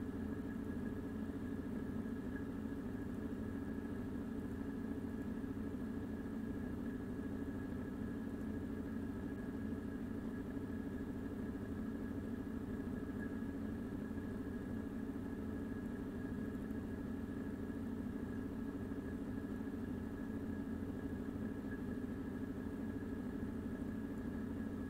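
Steady background hum, unchanging, with a faint thin high whine held over it.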